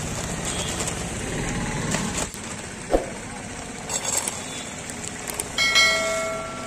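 Plastic packet of frozen sweet corn being handled, with a sharp click about halfway through and a few smaller clicks after. Near the end the frozen kernels are tipped into a steamer pot, a short rattle followed by a ringing metallic tone from the struck metal pot.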